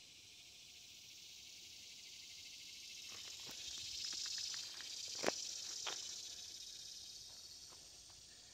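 A cicada's high, hissing buzz swells to a peak about halfway through and then fades away. A few light clicks and one sharp tap sound near the middle.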